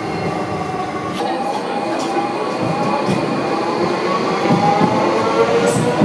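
Docklands Light Railway train accelerating, its electric traction motors giving a whine that rises in pitch in repeated steps over the rumble of wheels on rail.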